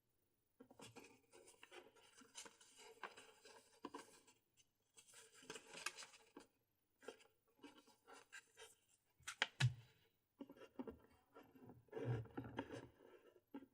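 Close-up handling of the GoPro Hero 4 Silver's packaging: quiet scratching, rubbing and light clicks in short bursts with brief silent gaps. The sharpest clicks come about two-thirds of the way through.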